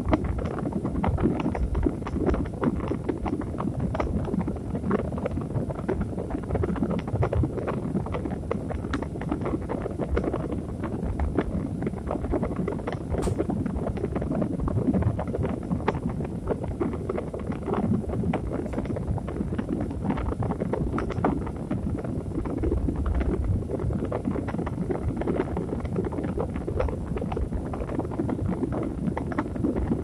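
Steady low rumbling noise with a dense, fine crackle running through it, from a continuous sleep-aid noise track.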